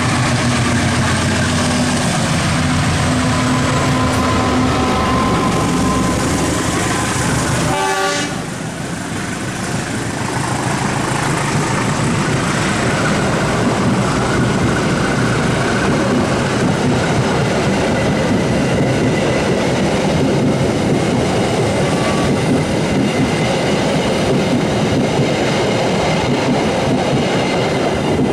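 Diesel locomotive running under power as it comes past, its engine note prominent for the first several seconds. About eight seconds in the sound changes sharply, and after that the train's cars roll by with steady wheel-on-rail noise and clickety-clack.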